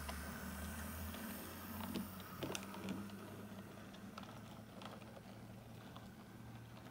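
OO gauge model train running slowly on the track: a steady low motor hum with irregular small clicks as the wheels cross rail joints and points.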